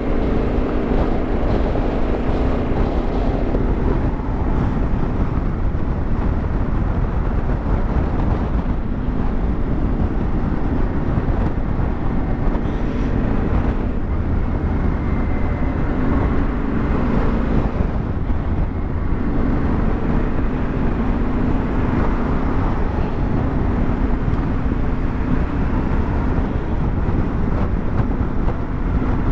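Yamaha Ténéré 700's parallel-twin engine running while it is ridden through slow traffic, the engine note rising and falling a little, with wind and road noise.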